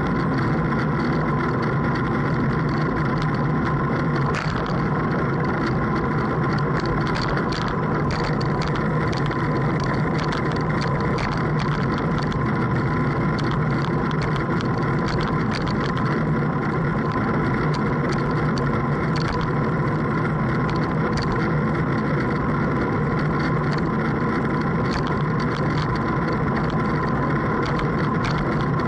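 A boat's engine running at a steady speed, its pitch and level unchanging.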